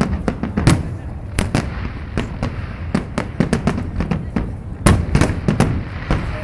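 Aerial fireworks shells bursting in a large display: sharp bangs in quick, irregular succession, several a second, over a continuous low rumble of overlapping reports.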